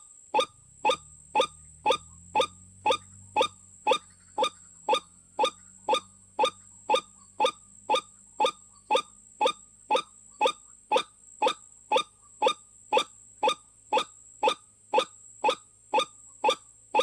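White-breasted waterhen (ruak-ruak) calling: short, sharp notes repeated evenly about twice a second, as a looped lure call.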